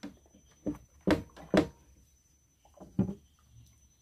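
A few short, sudden noises about half a second to a second apart, the loudest two just after a second in, then one more about three seconds in.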